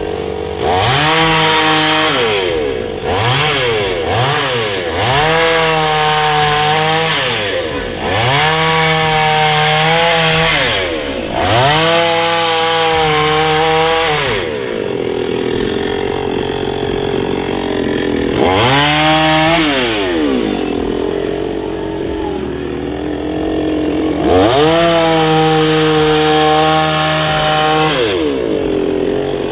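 Two-stroke petrol chainsaw revving up and dropping back again and again, about every two seconds, as it cuts through bush branches. It settles to a lower running speed midway with one more rev, then holds high revs for several seconds near the end.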